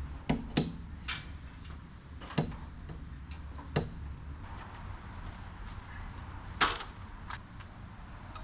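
Scattered sharp knocks and clicks, about seven, irregularly spaced, over a low steady hum; the loudest comes a little over six seconds in.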